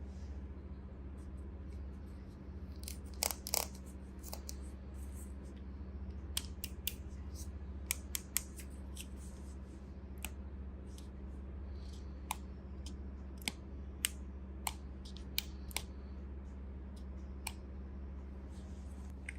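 Irregular sharp clicks, one every second or so, with a brief cluster of louder ones about three seconds in, over a steady low hum.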